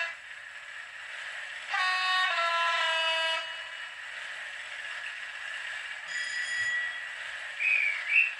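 A Class 56 diesel locomotive sound file plays through the small speaker of a Hornby HM7000 sound decoder in a model locomotive. Under a steady engine-running sound, the two-tone horn sounds about two seconds in: a high note, then a lower one, about two seconds in all. Two short high chirps come near the end.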